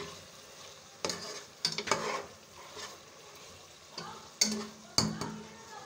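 Spatula stirring chicken and masala frying in ghee in a pot: about six sharp scrapes and knocks against the pot in two groups with a pause between, over a low sizzle. The masala is being browned (bhuna) in the ghee.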